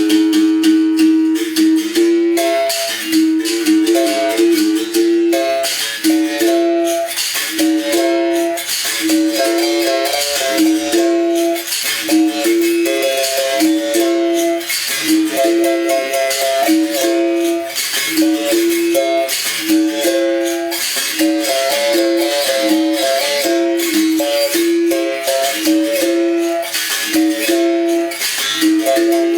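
Bamboo berimbau played in a steady rhythm. The stick strikes the steel wire, switching between a low open note and a higher note in quick little groups, and the caxixi rattle shakes with the strokes.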